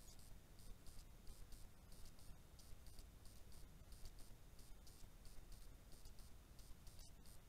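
Near silence with faint, high-pitched chirping pulses a few times a second, typical of night insects, over a low hiss.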